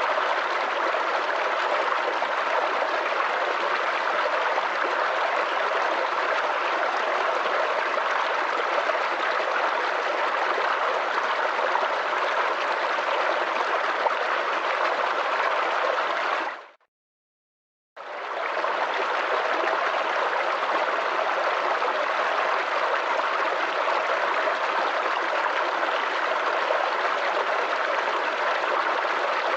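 Small forest creek babbling and gurgling in a steady rush. Past the middle it fades out to a second or so of silence, then comes back abruptly.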